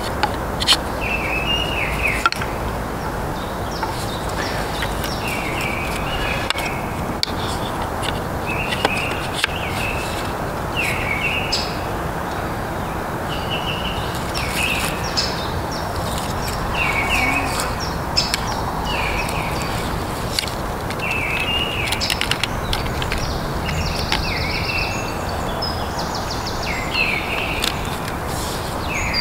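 A songbird repeats a short chirping phrase every second or two over a steady outdoor rushing noise. Now and then come sharp clicks and knocks from the wooden bucksaw frame parts being fitted together.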